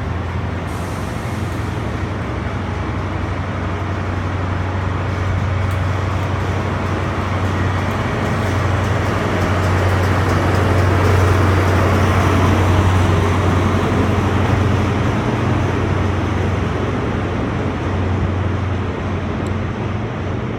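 Diesel passenger train pulling out of the station. A steady low engine hum sits under a rumble that grows louder about halfway through, then eases off.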